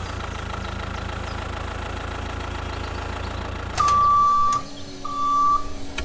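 Tractor engine idling with a steady low rumble; a little under four seconds in the engine drops away and a reversing beeper starts, sounding long, high, steady beeps about a second apart as the tractor backs up to the trolley.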